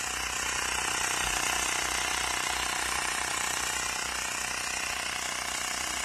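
Xiaomi Mi portable electric tyre inflator running steadily as it pumps air into a car tyre, nearing its preset 32 PSI cut-off.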